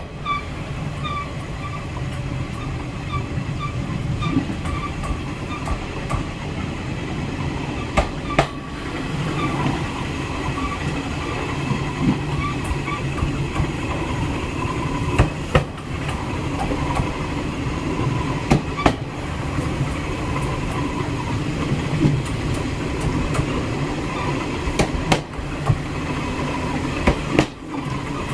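Train running on the rails: a steady rumble with a scattering of sharp knocks from the wheels.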